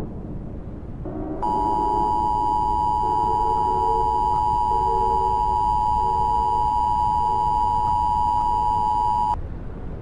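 Emergency Alert System attention signal: a steady two-tone alarm held for about eight seconds. It starts just over a second in and cuts off sharply near the end, announcing an emergency alert message. A rising hiss comes before it.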